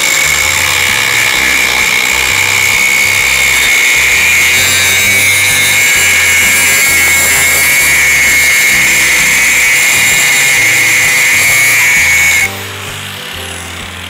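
4-1/2-inch angle grinder with an abrasive grinding wheel grinding into a square steel tube: a loud, steady high whine over a harsh hiss of metal being ground away. The sound cuts off abruptly near the end as the wheel comes off the steel.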